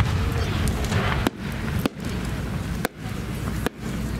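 A 10-inch firework shell climbing on its rising tail after launch. There is a hiss in the first second, then a few sharp cracks, over a steady low rumble.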